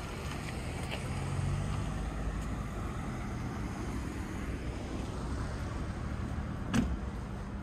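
Steady low rumble of motor vehicles, swelling slightly about a second in, with one sharp knock near the end.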